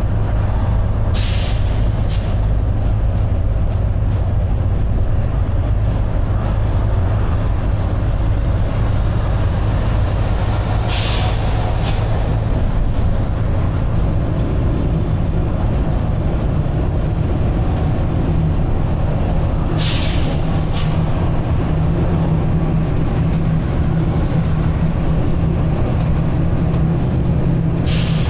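Volvo B9TL double-decker bus driving at speed, its six-cylinder diesel engine working hard under a loud, steady drone heard from on board, the drone strengthening about halfway through. Four short sharp hisses of air from the bus's air system come roughly every nine seconds.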